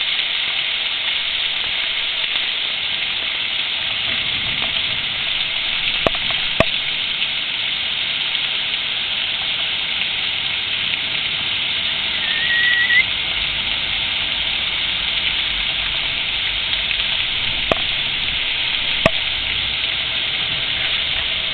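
Heavy rain pouring down in a steady hiss, with a few sharp taps of drops striking close by. A brief rising chirp sounds about twelve seconds in.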